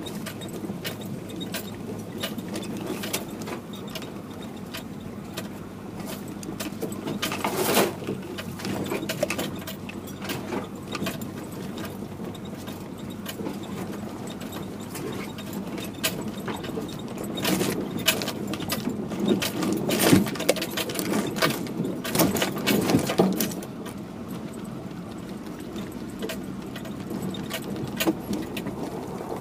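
Vehicle engine running slowly, heard from inside the cab, with frequent rattles, knocks and jangling as it bumps over a rough, overgrown dirt track and brush scrapes along its sides. The clatter and scraping grow louder about eight seconds in and again for several seconds past the middle.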